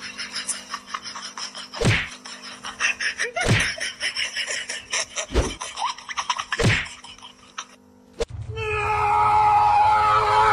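Four loud thuds, about one and a half to two seconds apart, over a crackling background. About eight seconds in, a different steady sound starts: a few tones held at a constant pitch.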